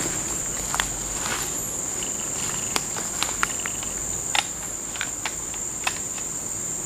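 A steady high-pitched insect drone, with a scatter of short sharp clicks over it.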